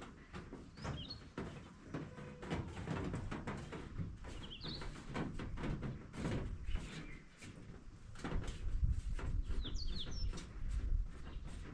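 A bird chirping in short bursts three times, over scattered clicks and knocks and a low rumble that grows louder in the last few seconds.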